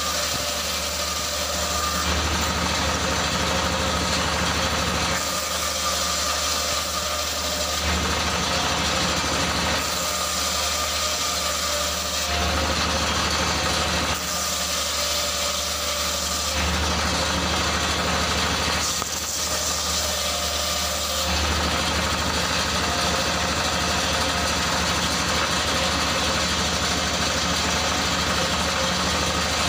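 Stationary engine running steadily to drive a large table circular saw, whose blade cuts through wooden boards in about five cuts of a few seconds each, with short pauses between them where only the engine hum remains.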